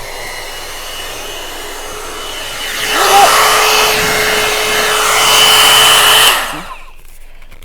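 Blow dryer round brush (hot air brush) running: a steady rush of air with a motor whine, stepping up to a louder setting about three seconds in, then switched off near the end.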